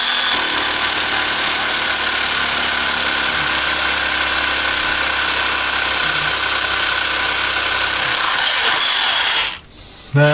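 Cordless power drill boring a hole overhead into a ceiling, running steadily at full speed, then stopping about nine and a half seconds in.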